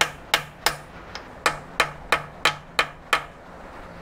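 Hammer tapping a socket used as a driver, seating a press-in oil galley plug into the International Harvester D-179 engine block: about three sharp metallic strikes a second, which stop a little after three seconds.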